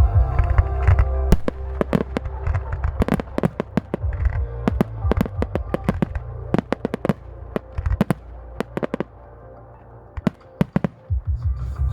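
Fireworks display: a rapid series of sharp bangs and reports, most of them close together, thinning out briefly near the end before picking up again, over background music with a heavy bass.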